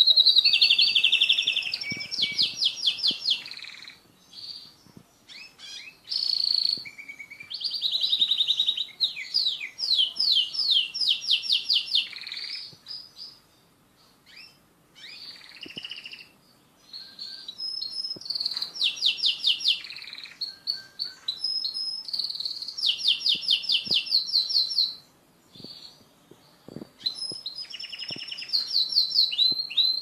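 Canary singing: phrases of fast, high-pitched trills of rapidly repeated notes, each lasting a second or two, with short pauses between.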